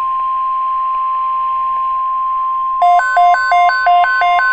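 Steady NOAA Weather Radio warning alarm tone, a single 1050 Hz pitch signalling an alert to follow. About three seconds in, a louder two-tone beeping joins it, flipping between a low and a high pitch about three times a second.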